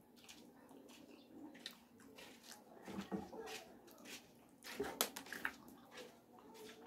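Close-miked eating sounds from roasted mutton torn apart by hand and chewed: a run of wet smacks and sharp clicks, the loudest about five seconds in.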